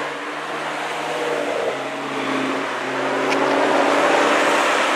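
McLaren 12C's twin-turbo V8 accelerating past, its engine note breaking off and picking up again twice, as on gear changes, and growing louder toward the end.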